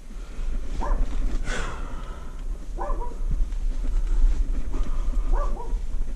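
A dog barking several short times over a steady low rumble.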